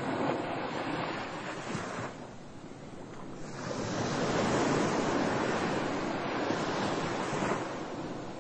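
Waves washing in, a rushing noise that swells, falls back, then swells longer and stronger before easing off near the end.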